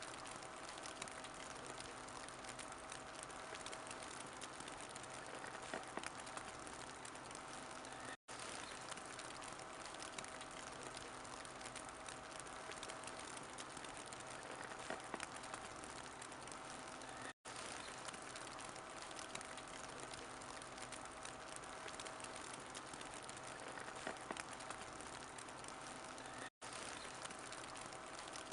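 Wood fire crackling in a fireplace: a steady hiss with scattered sharp pops. The sound cuts out for an instant about every nine seconds and starts again.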